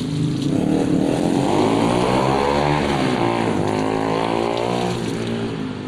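Shimizu electric water pump running and pumping water again after its rust and scale were cleaned out. About half a second in, a louder engine-like sound that rises and falls in pitch swells over it, then fades near the end.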